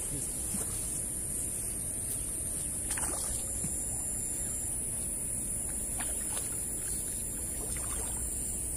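Steady riverside ambience: low rushing of flowing water with a constant high hiss of insects, and a few faint ticks.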